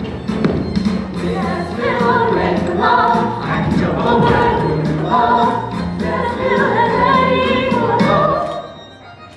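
A chorus of young voices singing a show tune over an instrumental accompaniment with a steady beat, breaking off briefly near the end.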